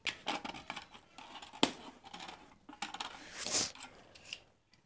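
Blade piercing and cutting through the foil seal of a jar: scratchy crinkling and scraping with a few sharp clicks, the sharpest about one and a half seconds in.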